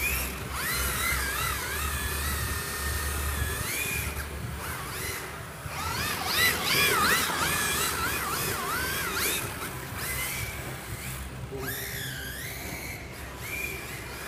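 Electric motors of MST FXX-D RC drift cars whining, the pitch rising and falling over and over with the throttle, over a low steady hum.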